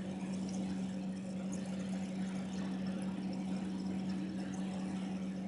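A steady low mechanical hum at one unchanging pitch, with faint scattered light ticks.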